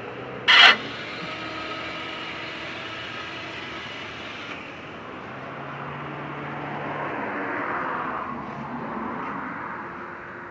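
Mitsubishi Galant sedan's engine idling steadily, with one loud sharp knock about half a second in.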